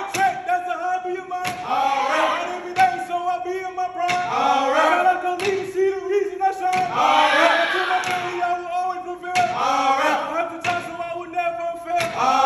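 Group of men chanting in unison on long held notes while a crowd screams and cheers in waves every few seconds, with sharp knocks of canes striking the wooden stage floor.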